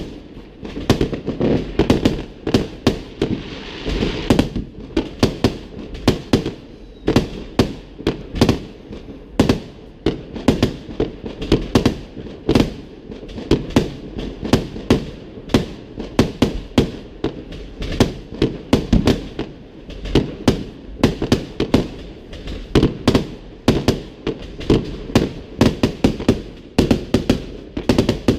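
Fireworks display: a dense, continuous barrage of sharp bangs and booms, several a second, with a brief crackling hiss about four seconds in.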